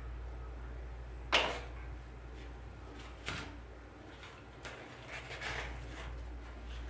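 Hands working a silk-flower arrangement: a sharp click about a second and a half in, a smaller click around three seconds, then light rustling of artificial leaves and flowers as a pick is pushed into the arrangement, over a steady low hum.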